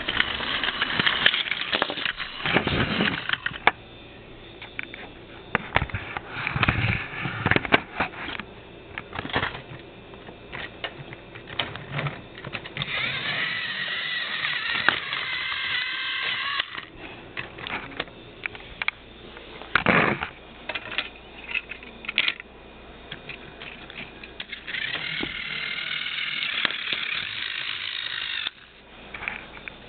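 Battery-powered Tomy toy trains running on plastic track, with irregular clicking, clattering and knocking of the plastic engines and wagons. Twice, for several seconds each time, a high whine wavers in pitch.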